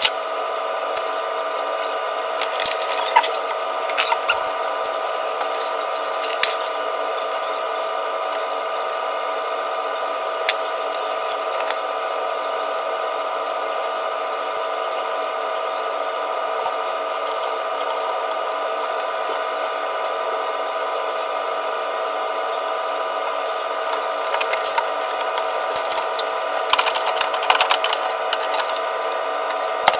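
Scattered metallic clicks and clatters of hand work on a vending machine's vend chain assembly, over a steady multi-tone hum. The clicks come in small clusters, most of them near the end.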